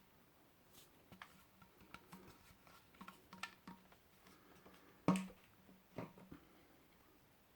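Handling noise: scattered light taps and clicks, with a louder thump about five seconds in and another about a second later.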